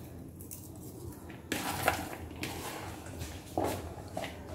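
Sliced onions being scrunched and squeezed by hand in a plastic bowl and lifted out: soft rustling and squishing, with a few short louder rustles, about one and a half seconds in, at two seconds and again near the end.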